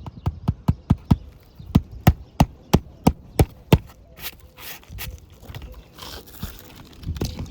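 A hand hammer driving roofing nails into asphalt shingles: about a dozen quick blows, roughly three a second, stopping about four seconds in, followed by softer rustling of shingle material.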